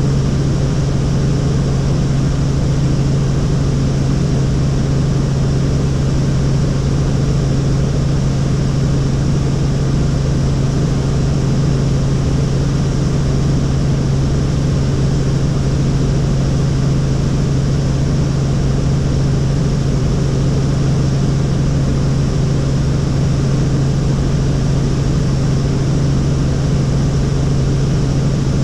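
Helicopter in flight heard from inside the cabin: a steady engine and rotor drone with a strong low hum that holds one even pitch.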